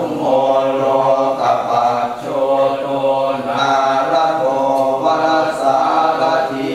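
Thai Buddhist chanting (suat mon) in Pali: low male voices intoning on a near-steady pitch, the syllables changing about twice a second.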